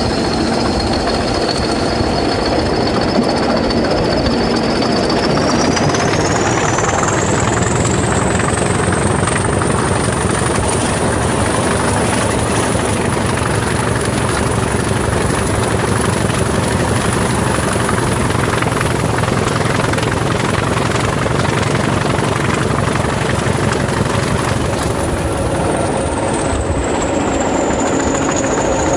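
A pair of Class 20 diesel locomotives running under power: dense, steady engine clatter with a high turbocharger whistle that rises in pitch about six seconds in, holds, and falls part way back a few seconds before the end.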